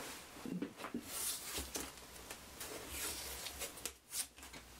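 Hands handling a small carbon-fibre frame and its blue tape on a wooden workbench: scattered rustles and scrapes with a few light knocks.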